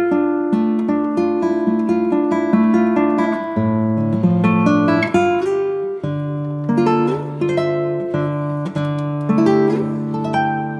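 Background music: an acoustic guitar playing picked notes over held bass notes, each note starting sharply and ringing away.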